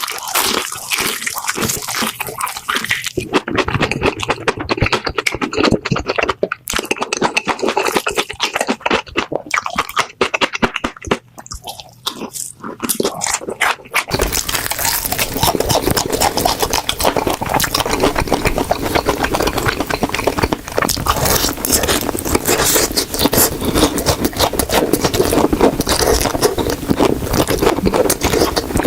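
Close-miked crunching and chewing of crispy fried chicken, with crackling bites separated by short pauses. About halfway through, the crunching becomes denser and more continuous.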